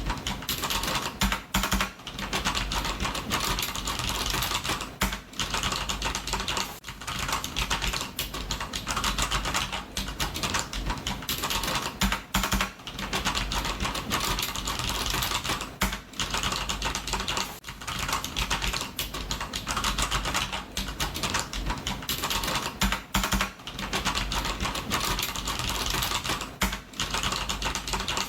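Computer keyboard typing: a fast, continuous run of key clicks with short pauses every few seconds.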